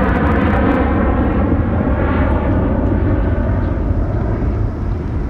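Boeing 737-800 airliner's CFM56 jet engines at takeoff power: a loud, steady rumble that recedes as the aircraft climbs away, its higher part thinning out.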